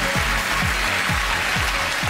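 Audience applauding over stage music with a steady beat.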